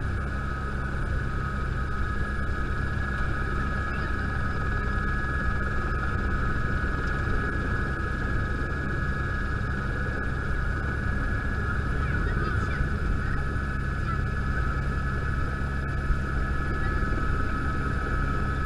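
Helicopter running steadily in flight: a continuous low rotor beat under a steady high turbine whine.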